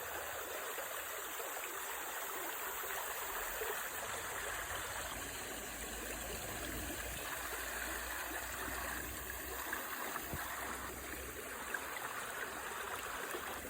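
Flowing water, like a small stream: a steady, even rush.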